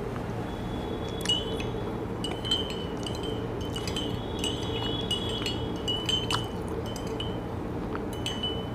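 Metal teaspoon stirring sugar into hot water in a porcelain teacup, clinking against the cup's sides. The clinks are light and repeated, each with a short high ringing tone, from about a second in.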